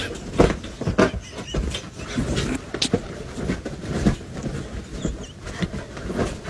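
A bloodhound digging at and circling on a bed's comforter: irregular rustling and thumping of paws on the bedding, with a few short vocal sounds from the dog.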